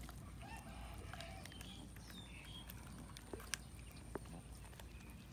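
Several cats chewing and tearing at a cooked chicken carcass, with a few sharp clicks a little past the middle.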